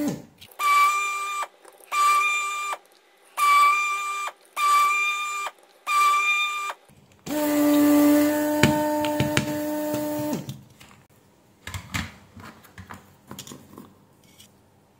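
A steady electric whine switched on and off in five short bursts, then a lower-pitched hum for about three seconds, followed by a few light clicks and taps.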